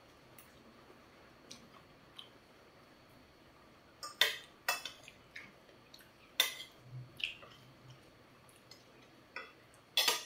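Metal fork and spoon clinking and scraping against a ceramic plate: scattered sharp clicks, bunched from about four to seven seconds in and again near the end, with quiet stretches between.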